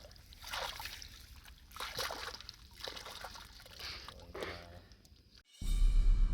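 Shallow river water splashing and sloshing in short bursts about once a second. Loud music cuts in suddenly near the end.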